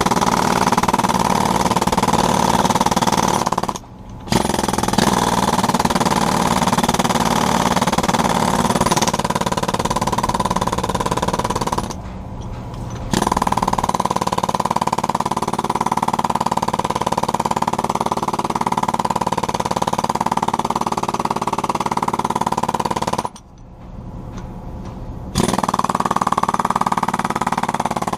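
Jackhammer breaking fiber-reinforced concrete, hammering continuously with three short stops: a brief one about four seconds in, about a second's pause near the middle, and a two-second pause near the end.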